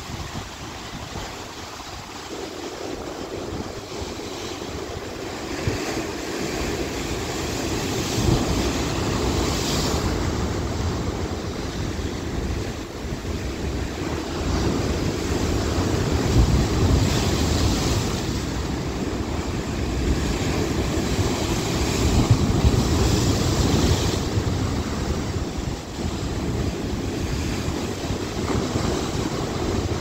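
Rough sea waves breaking and washing over rocks along a rocky shore: a continuous rush of foaming water that builds over the first several seconds, then swells and eases with each surge.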